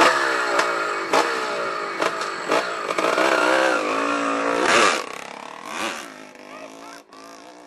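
Dirt bike engine revving up close, its pitch rising and falling as it pulls away, with a few short clattery knocks. After about five seconds it drops to a fainter, steadier running sound.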